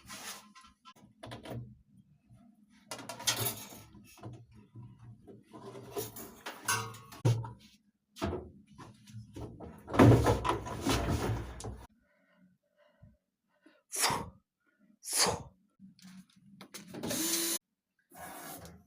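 Irregular knocks, clunks and rustling of things being handled, with a loud clattering stretch about ten seconds in and several short sharp noises near the end.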